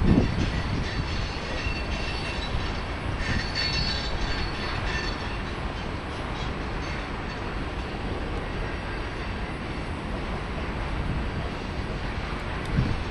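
Freight train rolling through a rail junction, a steady rumble of wheels on track, with thin high wheel squeal a few seconds in.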